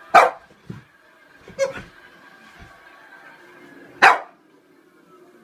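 French bulldog barking in alarm at a toy clown: three sharp barks, the first and last the loudest, with a softer bark just after the first.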